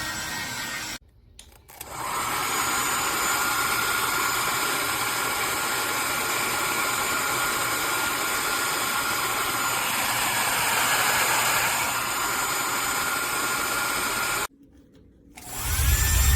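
Dxliwky 1875W hair dryer running steadily: an even rush of air with a faint motor whine. The sound cuts out abruptly about a second in and again near the end, each time for under a second, before coming back.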